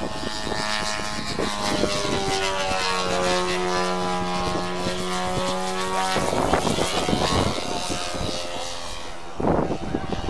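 Engine and propeller of a large-scale radio-controlled Christen Eagle biplane running at a steady throttle as it flies aerobatics, its note sliding in pitch for a few seconds. Bursts of rushing noise cover it about six seconds in and again near the end.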